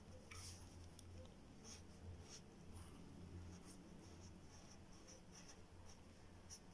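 Faint scratching of a graphite pencil on paper in many short strokes, over a low steady hum.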